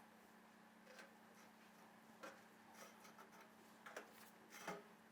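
Faint, irregular clicks and light taps from the rack and toast being worked out of a small toaster oven, over a faint steady low hum.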